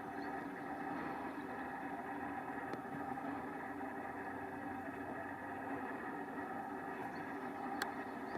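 An engine running steadily at an even speed, with a single sharp click near the end.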